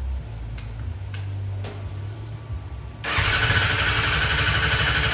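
A few light clicks, then about three seconds in the 2006 Kawasaki Ninja ZX-600's inline-four is cranked on its electric starter for about two seconds with a fast, even pulsing. It stops without the engine running on.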